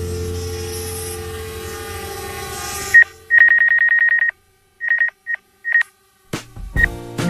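Background music with sustained tones that cuts off about three seconds in, giving way to a series of high electronic beeps, first a fast run of about ten a second and then a few single beeps, separated by dead silence. Near the end a new music track starts with sharp percussive hits.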